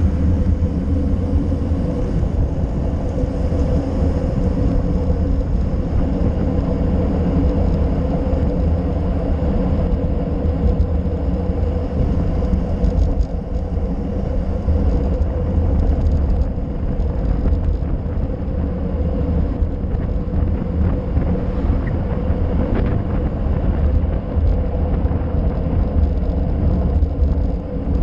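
Wind buffeting the microphone of a handlebar-mounted action camera on a fast bicycle descent, a heavy steady rumble, with tyre noise on the tarmac underneath.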